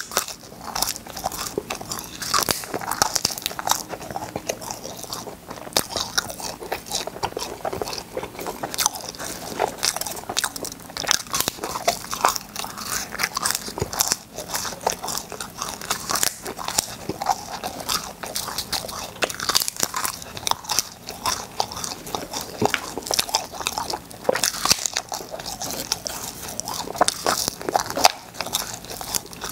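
Close-miked eating of cola-flavoured popping candy: a dense, steady run of small crackling pops and crunches.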